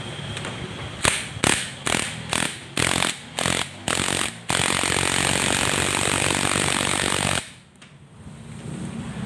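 Cordless impact wrench hammering on the flywheel (alternator rotor) nut of a Honda Click 150 scooter engine: about eight short trigger bursts, then one continuous run of about three seconds that cuts off suddenly.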